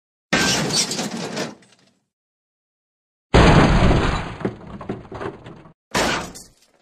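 Three car crash sound effects, each a sudden crash with breaking glass that trails off into scattered clinks of debris, about three seconds apart; the last one is short.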